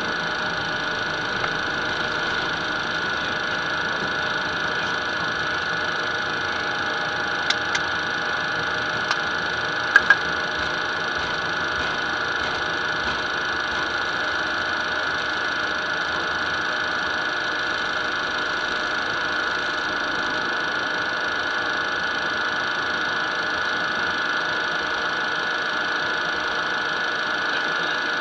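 Steady cockpit noise of a Cessna Citation twin-jet on its landing rollout and turning off onto the taxiway: engines running with a constant whine over a rumble. A few sharp clicks sound, the loudest pair about ten seconds in.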